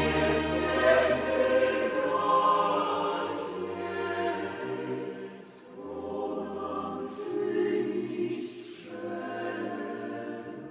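Choral music: a choir singing slow, held notes over a sustained low bass, with soft sibilant consonants, growing quieter near the end.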